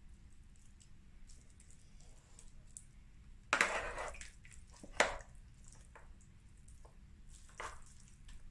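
Spoonfuls of moist shredded beef pie filling dropped and spread onto a sheet of pastry with a metal spoon: a wet squelching plop about three and a half seconds in, a sharp click a second later, and a smaller plop near the end.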